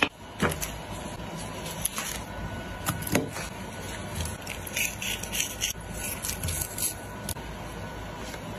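Food-prep sounds: a chef's knife cutting into a whole raw chicken on a wooden board, then gloved hands handling raw chicken breasts, heard as irregular scrapes, knocks and crisp clicks, busiest in the second half.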